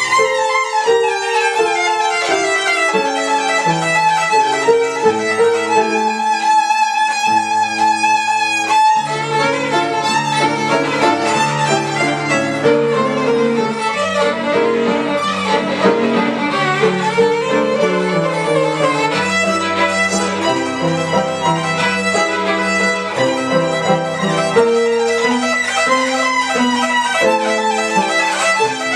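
Violin playing a quick melodic line with piano accompaniment underneath.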